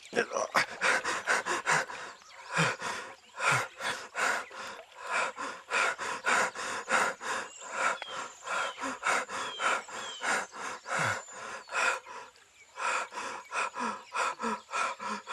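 A man panting hard and fast through an open mouth with effort, in quick ragged breaths about two to three a second, with a short pause about twelve seconds in.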